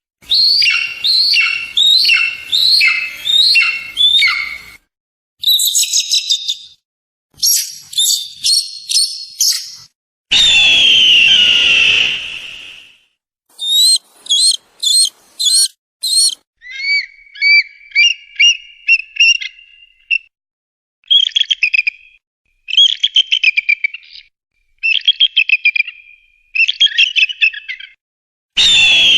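Eagles calling in a string of separate high, piercing series: a run of falling notes, fast chittering bursts, one long downward-sliding scream about ten seconds in, then rapid chattering calls with short pauses between them.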